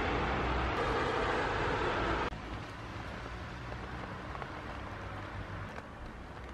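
Steady outdoor noise of road traffic that cuts off abruptly about two seconds in, leaving a much quieter low hum.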